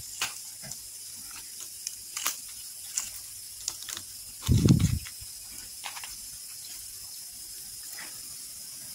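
Hands handling a potted Maranta zebrina's leaves and stems, giving scattered light rustles and snaps as burnt leaves are plucked off, with one dull low thump about halfway through, over a steady hiss.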